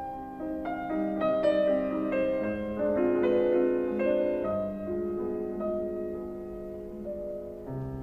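Background music: soft piano-led instrumental, with notes entering one after another and sustained.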